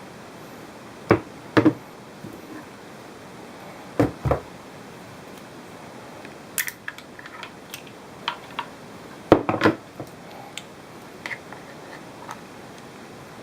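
Scattered clicks and knocks of a pistol grip being handled and worked: a pair a little after a second in, another pair around four seconds, a quick cluster of the loudest ones near the end, and lighter ticks in between.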